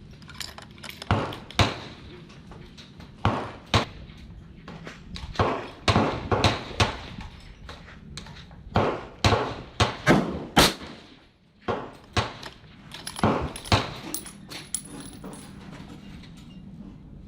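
Irregular gunshots on a shooting range firing line, about twenty sharp reports, some coming in quick pairs. They come too fast for one bolt-action rifle, so several shooters are firing.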